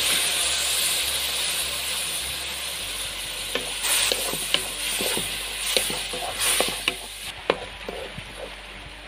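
Grated jaggery and a little water sizzling in a hot wok as it melts into syrup. The hiss is loud at first and fades over the first few seconds, while a spatula stirs and scrapes against the pan, with irregular clicks and knocks from about three seconds in.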